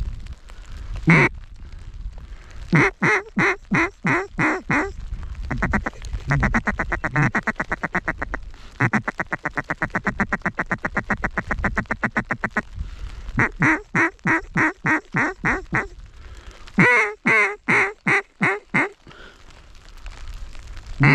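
Canada goose call blown in strings of short honks and clucks. Near the middle comes a long fast even run of clucks, about eight a second, that calls to geese working the decoys.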